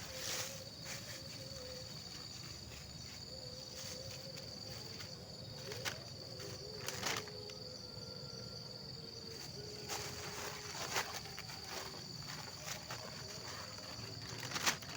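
Steady high-pitched trilling of forest insects, with scattered light clicks and knocks from cooking gear being handled.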